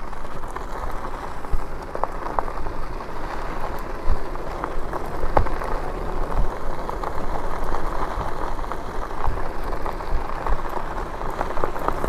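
Lectric e-bike tyres rolling over an unpaved road: a steady gritty hiss with scattered small ticks, over a low rumble.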